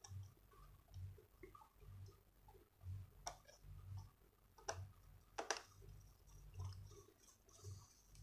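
Faint clicks and light taps of a small screwdriver driving the screws back into a laptop's plastic bottom case, with a few sharper clicks a few seconds in.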